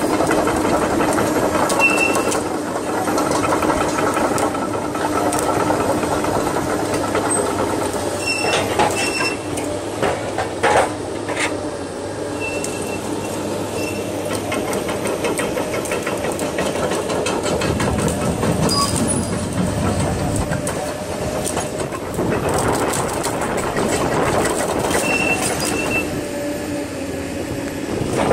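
A Komatsu PC200LC hydraulic crawler excavator runs steadily, its diesel engine under load as it works its grapple. Brief high squeaks come now and then, with a couple of metal clanks about ten seconds in.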